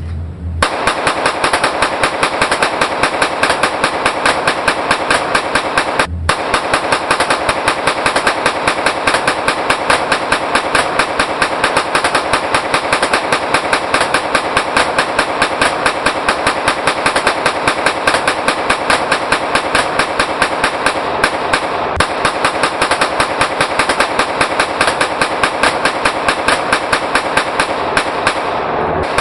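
Rapid, continuous 9mm gunfire from a Glock pistol in a Roni carbine conversion kit, shot after shot in a steady string with barely a pause, broken only briefly about six seconds in.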